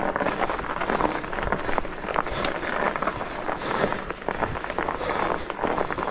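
Fat bike's wide tyres crunching and crackling over a snow-covered trail, with small knocks and rattles from the Norco fat bike as it rolls over the bumpy ground.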